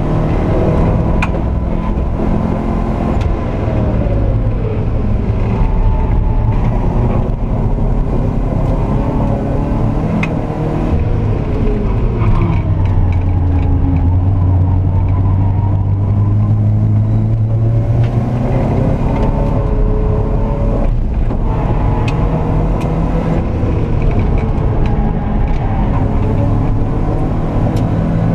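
Alfa Romeo Alfasud 1.5 TI's flat-four boxer engine, heard from inside the cabin while being driven hard on a race track. The revs rise and fall repeatedly, with a lower, held engine note for several seconds around the middle.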